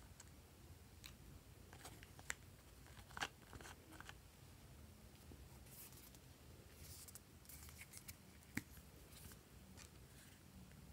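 Faint scraping of a plastic spatula digging into pressed eyeshadow, with a few sharp clicks as makeup palettes and packaging are handled.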